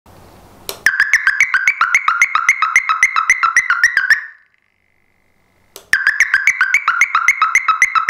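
Electronic hooter (horn-type siren) sounding a fast pulsing warble of about six chirps a second. It comes in two bursts of about three seconds each with a short break between them: the smoke alarm is triggered by smoke reaching its MQ135 smoke sensor.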